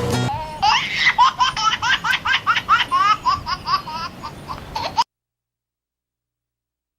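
High-pitched laughter in a quick run of short, rhythmic bursts, about three or four a second, that cuts off abruptly to dead silence about five seconds in.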